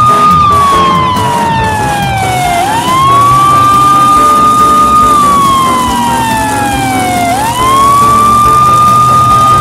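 Police siren wailing in a slow cycle: the pitch climbs quickly, holds high, then slides slowly down, and starts over about every four and a half seconds, about twice.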